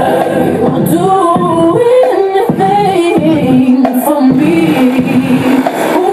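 Loud party music with a sung melody line, played over the stage sound system.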